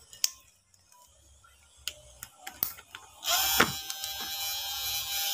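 A few light clicks and taps of small parts being handled, then about three seconds in a small handheld electric rotary tool spins up and runs at a steady high speed, working the opening cut in a copper-clad board plate.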